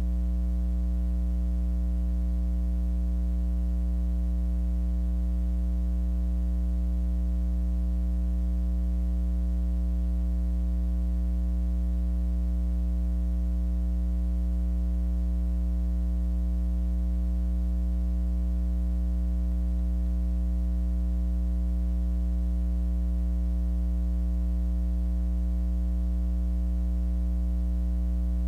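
Steady electrical mains hum: a low, unchanging buzz with a stack of overtones, and no other sound.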